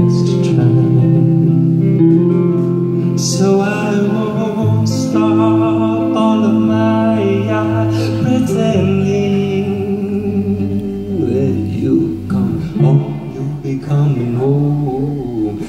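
Live music: electric guitar chords ringing out, with a male voice singing wavering, wordless-sounding notes over them in the second half.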